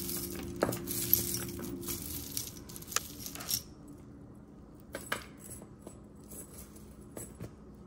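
Metal jewelry chains jingling and clinking as they are handled and pulled from a tangled pile, busiest in the first few seconds, then a few scattered clinks.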